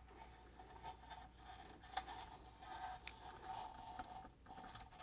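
Faint scraping and a few light clicks, about one a second, of a socket and ratchet being worked onto a 14 mm caliper mounting bracket bolt, over a faint steady hum.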